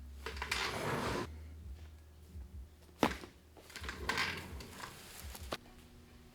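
Rustling of clothing and bodies shifting on a treatment table during a chiropractic adjustment, with a sharp crack about three seconds in and a fainter click near the end.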